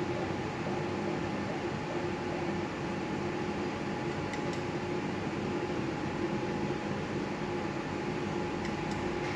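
Steady mechanical hum with a low tone running through it. Faint clicks come about four seconds in and again near the end.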